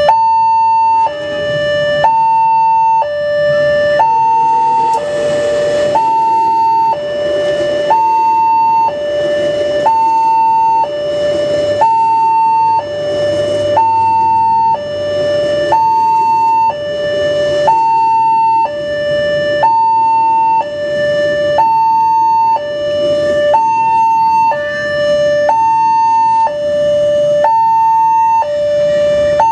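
Railway level-crossing warning alarm: an electronic two-tone signal switching between a high and a low note about once a second, without a break. Through the middle, a passenger train's carriages rumble past under it.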